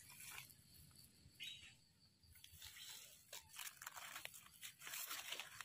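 Faint crunching and crackling of dry leaf litter and soil being disturbed by a gloved hand clearing around a mushroom, sparse at first and busier in the second half.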